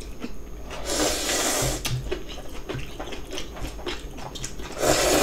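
Two long slurps of noodles with cold radish-kimchi broth, about a second in and again near the end, with small chewing and chopstick clicks between.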